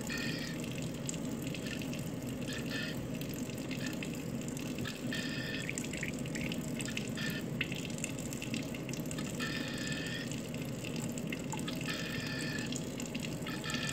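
Tap water running steadily through a faucet water aspirator that pulls the vacuum for a filter flask. Every few seconds a higher hiss rises over it and fades.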